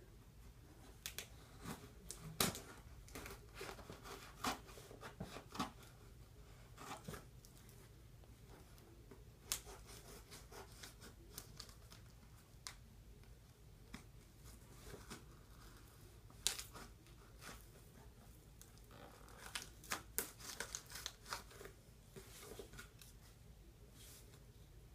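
Toy packaging being opened by hand: cardboard and plastic torn and crinkled in scattered sharp crackles and snaps, with louder clusters about two seconds in and again around twenty seconds in.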